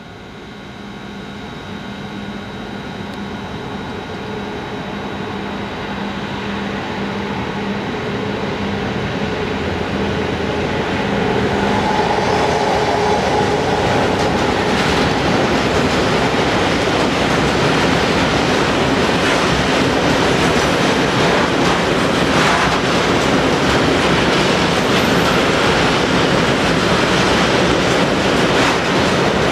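Freight train of hopper wagons passing on the rails: its rumble grows steadily over the first twelve seconds as it approaches, then holds as a steady rumble with clattering wheels as the wagons roll by. A steady hum sits beneath it until the passing train drowns it out.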